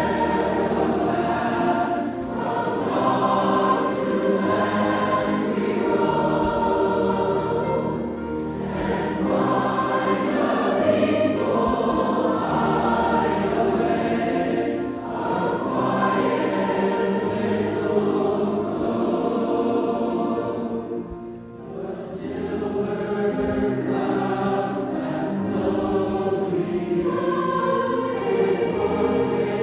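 A large choir of about 220 junior high voices singing a piece in full, sustained chords. The sound thins briefly about twenty-one seconds in, then the full choir comes back in.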